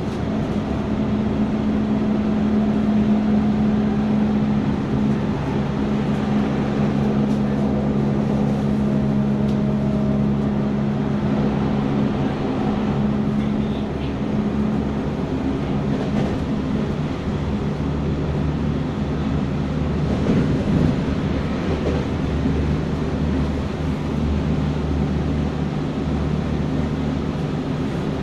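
Running sound heard from inside a fourth-batch Tokyo Metro 9000-series subway car: a continuous wheel-and-rail rumble with a steady motor hum. The hum fades around the middle and gives way to a lower hum in the second half.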